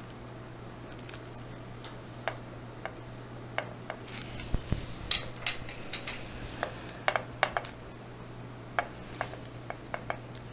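Scattered light clicks and taps from hands working polymer clay with a thin metal sculpting tool on patty paper, coming more often after about four seconds, over a steady low hum.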